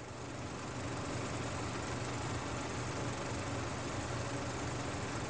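A steady mechanical drone with a low hum and a hiss, like a motor running, fading in over the first second and then holding level.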